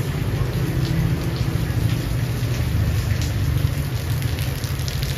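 Steady rain falling, with a constant low rumble underneath and scattered drop ticks.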